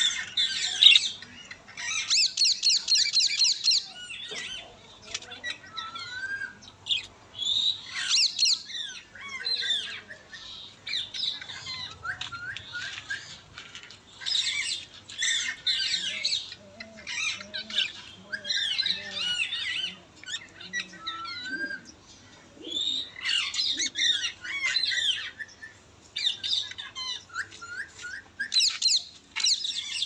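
Indian ringneck parrot giving bursts of high, rapid chattering squawks, with short pauses between the bursts.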